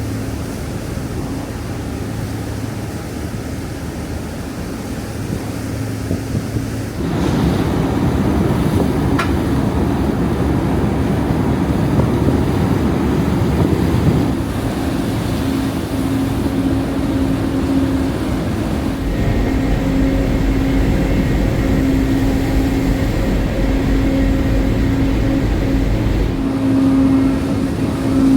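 Engines of an Incat high-speed catamaran car ferry running steadily, with a droning hum over rushing water and wind noise. It gets louder about seven seconds in, and a deeper rumble joins later on.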